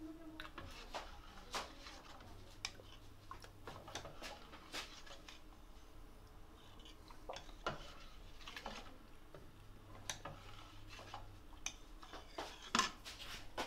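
Metal ladle stirring thick curry in a stainless-steel pot: irregular light scrapes and clinks of metal on metal, with a sharper clatter near the end.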